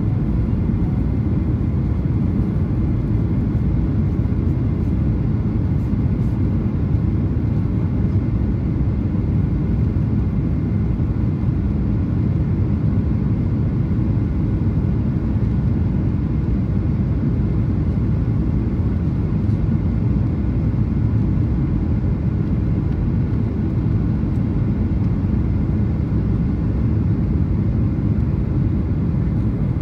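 Steady low rumble of a Boeing 737-800 heard from inside the passenger cabin: the CFM56 engines and the rush of air along the fuselage, even throughout with no sudden events.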